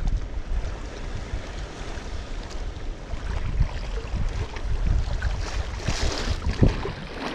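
Wind buffeting the microphone with a gusting low rumble, over sea waves lapping and splashing against shoreline rocks, with a louder splash about six seconds in.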